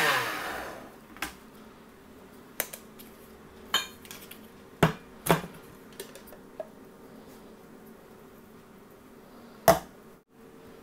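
Electric blender's motor spinning down after grinding almonds, its pitch falling as it stops within the first second. Then scattered clicks and knocks of the plastic grinder jar and lid being taken off the base and handled, the sharpest knock near the end.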